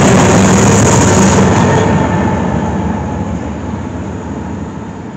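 BNSF diesel locomotive at the back of a hopper freight train passing close by, its engine giving a steady drone over the noise of the wheels. The train sound then fades steadily as it moves away.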